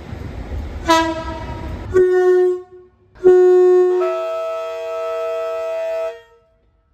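Train horn sounding several blasts over a low rumble: a short toot about a second in, a brief single-note blast at two seconds, then a loud long blast in which a second, higher note joins, making a two-tone chord. It cuts off abruptly just before the end.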